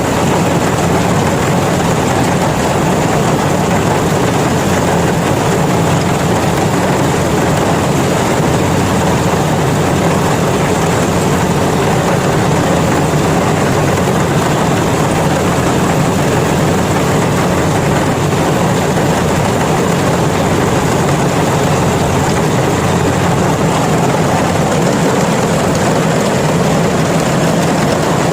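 Yanmar rice combine harvester's engine running steadily under load, with an even low hum and a thin high whine.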